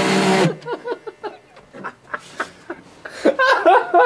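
A handheld power drill running at high speed, cutting off about half a second in. Then people laughing in short bursts, louder near the end.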